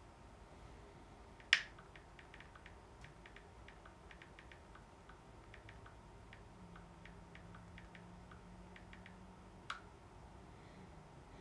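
Smartphone on-screen keyboard clicks as a text message is typed. A sharp click comes about a second and a half in, then a run of quick, faint, irregular taps, and another click near the end.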